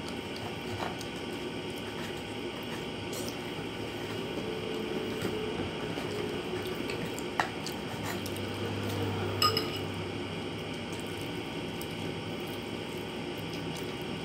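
Eating by hand from a ceramic plate: fingers pressing and scooping rice and fish, with a couple of light dish clinks about halfway through, over a steady background hum.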